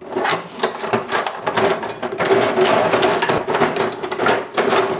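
Edited-in sound effect of a Viking raid: a dense din of banging and clanging over a steady low drone.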